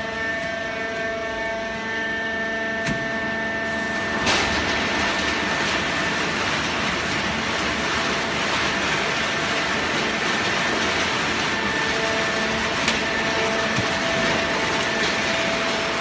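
Fully automatic horizontal hydraulic baler running, with a steady machine hum of several tones. About four seconds in there is a sharp click, then a loud, steady rushing noise as the machine works on.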